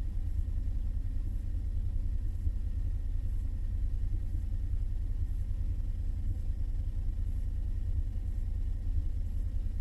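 Honda NC750X's 745 cc parallel-twin engine idling as a low, steady rumble.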